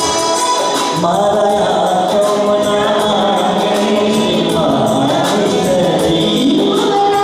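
Devotional bhajan performed live: an electronic keyboard holds steady instrumental notes, then about a second in a man's voice comes in singing the melody over the keyboard accompaniment.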